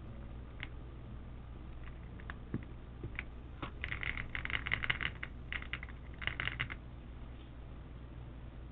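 Plastic keycaps clicking and clattering as they are handled and fitted onto a keyboard: a few single clicks, then a busy rattle of small clicks from about four to seven seconds in.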